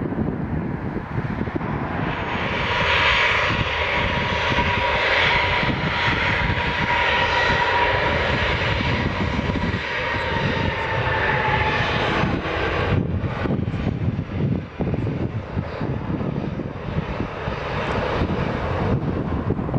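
Jet engines of an Airbus A320-family airliner rolling on the runway: a steady roar with a whine on top, the whine dropping in pitch about twelve seconds in, after which the roar turns rougher and less even.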